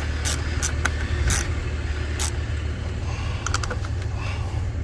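Sharp, irregular metallic clicks and clinks of a wrench working a car battery's terminal nut, over a steady low hum.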